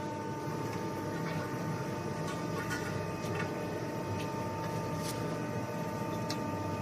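Hydraulic punching machine idling between strokes: a steady hum with a constant whine, and a few faint light clicks scattered through it.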